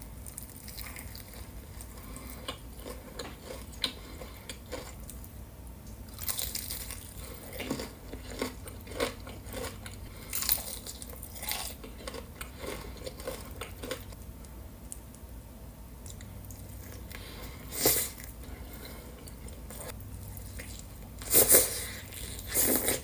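Close-miked eating of breaded fried chicken, a sandwich and sauce-dipped tenders: crunchy bites and wet chewing, with several louder bites, the loudest near the end.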